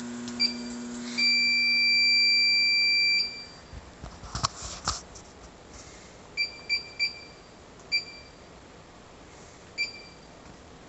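Keypad beeps from an Autool LM706 refrigerant filling machine's control panel. A short beep is followed by a long beep of about two seconds, while a low steady hum from the machine stops as the long beep ends. Then come five short key-press beeps as menu buttons are pressed.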